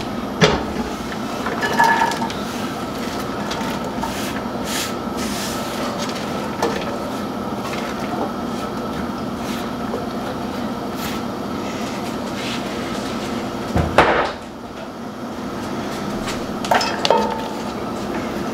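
Chopped onion, celery and carrot sizzling in hot oil in a pot as they are scraped in to sauté, with a few sharp knocks of a wooden cutting board against the pot, the loudest about fourteen seconds in.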